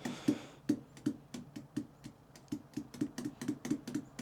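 A quick, slightly uneven series of light clicks or taps, about three or four a second, with a short pause about two seconds in.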